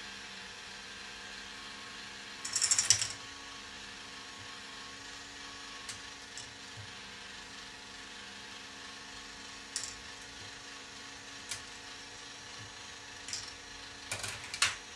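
K'nex rotating ball machine running: a steady hum from the drive turning the wheel, with plastic balls clattering along the track in a loud burst about two and a half seconds in. Scattered single clicks follow, then a quick run of clicks near the end.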